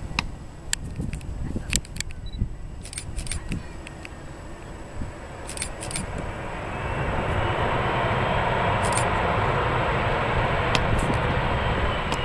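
Jet engines of a Boeing 737-300 airliner on its landing rollout, the CFM56 turbofans building to a steady, loud roar from about six seconds in, with a faint whine rising in pitch over it. A few sharp clicks come in the first few seconds.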